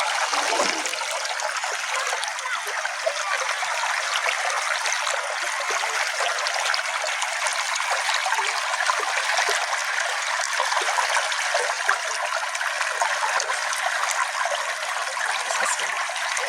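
Small stream flowing: a steady, even trickling and babbling of running water, mostly hiss-like and bright with little low rumble.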